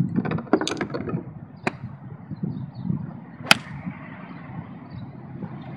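A golf club striking a ball off a driving-range mat, one sharp crack about three and a half seconds in, over a steady low background rumble. A few fainter clicks come in the first second or two.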